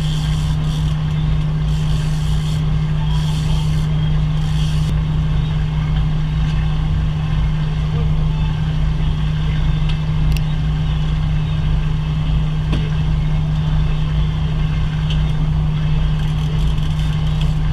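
Boat engine running steadily with an even, unchanging hum over a low rumble.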